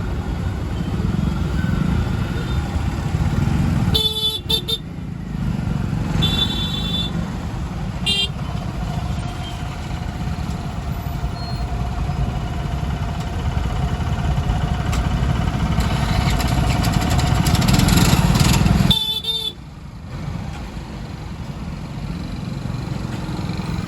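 Congested road traffic in a jam: engines running in a steady rumble, with several short horn honks, a few in the first half and one more near the end.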